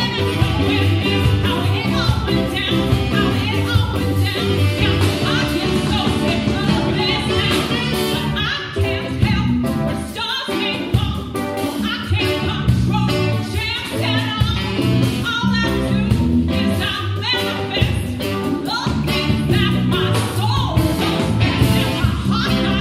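A woman singing lead with a live band: electric guitar, bass guitar and drums playing a steady beat.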